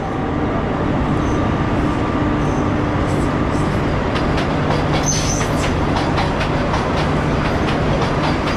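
Passenger train rolling alongside the platform: a steady loud rumble with a run of wheel clicks over the rail joints from about three seconds in, and a brief high wheel squeal about five seconds in.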